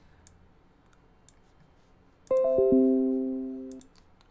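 A short computer chime about two seconds in: a quick falling run of plucked-sounding notes that rings and fades over about a second and a half. There are a few faint clicks around it.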